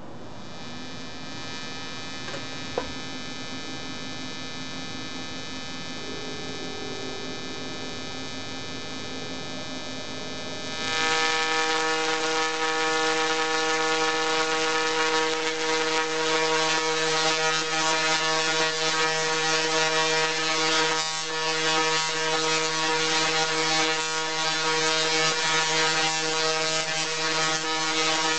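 Dual-resonant solid-state Tesla coil firing, its spark discharges making a steady, pitched electric buzz. About eleven seconds in the buzz turns much louder and lower-pitched as the arcs grow longer. A single sharp snap comes near three seconds in.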